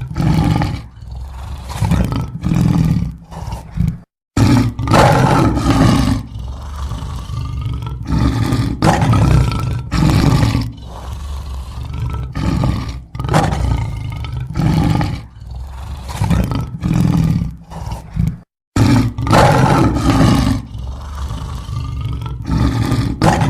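Lion roaring in a series of heavy calls, one about every second, cut twice by a brief drop to silence.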